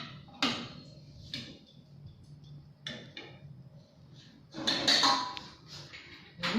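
Kitchen cookware and utensils being handled: a few separate knocks and clinks, then a longer, louder clatter about four and a half seconds in.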